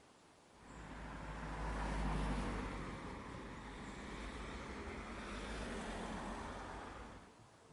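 A motor vehicle going by, a broad rushing sound with a low engine rumble. It swells in about half a second in, is loudest around two seconds, and falls away fairly suddenly near the end.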